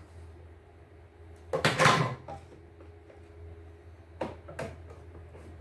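Plastic casing parts and a screwdriver being handled while an embroidery machine is taken apart: a short rattling clatter about two seconds in, then two light clicks about four seconds in, over a steady low hum.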